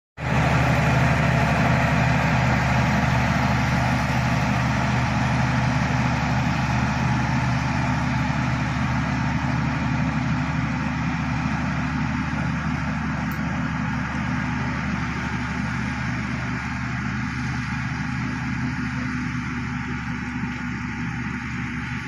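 Shantui crawler bulldozer's diesel engine running steadily as the dozer pushes through mud, growing slowly quieter as it moves away.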